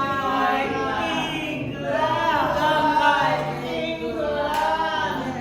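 A group of voices singing together unaccompanied, in chorus.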